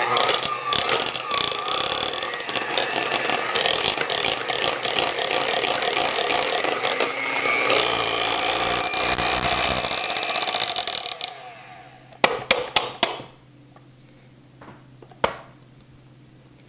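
Electric hand mixer running, beating cream cheese and minced shallot in a bowl, with a steady whir for about eleven seconds before it winds down and stops. A quick cluster of sharp knocks follows, then a single click near the end.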